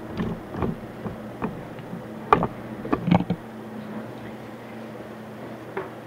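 Handling noises as a wooden beehive inner cover is set down and shifted on a plastic drop cloth and painting tools are picked up: a run of knocks and rustles over the first three seconds or so, the loudest about two and a half seconds in, and one more knock near the end. A steady low hum lies underneath.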